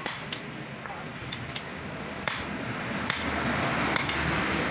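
Hammer blows on a chisel cutting through a steel truck leaf spring: about half a dozen sharp metallic strikes at an irregular pace, over a steady background noise.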